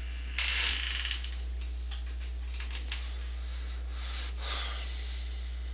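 A man breathing out hard twice, about half a second in and again about four seconds in, the first breath the louder, over a steady low electrical hum with a few faint clicks.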